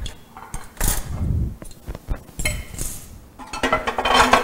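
Cutlery and dishes clinking and knocking: a fork and knife against a baking tray and plate, a few separate knocks and then a longer clatter near the end.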